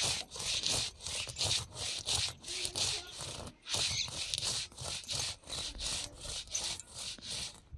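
Stone roller being worked back and forth over a sil stone grinding slab, scraping as it crushes soaked moong dal and roasted fenugreek into paste. Quick scraping strokes at about four a second, with a brief pause a little past three and a half seconds in.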